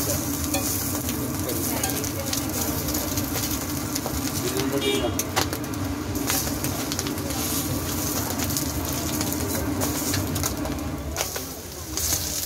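Metal spatula and skewer clinking and scraping on a large flat iron griddle as egg-filled parathas are flipped, over the hiss of frying and a steady low hum.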